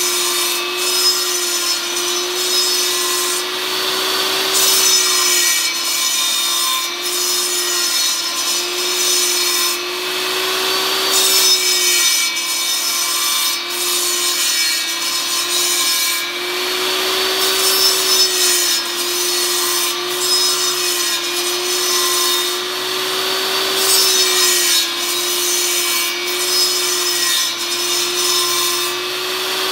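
Jobsite table saw running with a steady whine while its blade cuts into blocks of 2x4 fed on a jig, the rasp of the cut coming and going in repeated passes every few seconds.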